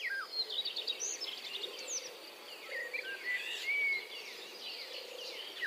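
Outdoor ambience of several small birds chirping and whistling in quick, overlapping calls over a steady high-pitched insect drone.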